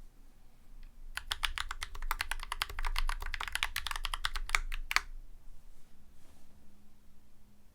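Typing on a Drop CTRL High Profile mechanical keyboard with lubed YOK Holy Panda tactile switches and GMK keycaps: a quick, dense run of keystrokes starting about a second in, ending on a couple of sharper strokes about five seconds in, then only faint room noise.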